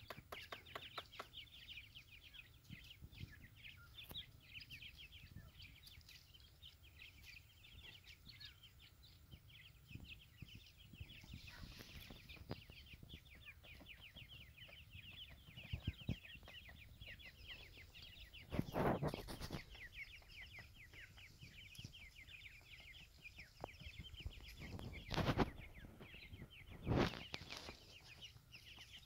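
A group of grey francolin chicks keeps up rapid, continuous high peeping while foraging. Three louder rustling bursts come about two-thirds of the way through and twice near the end.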